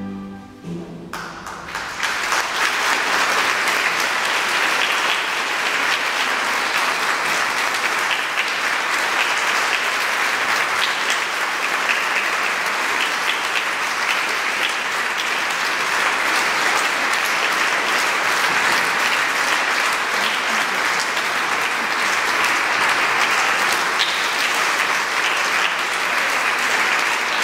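A string orchestra's last chord dies away in the first second, then an audience applauds steadily.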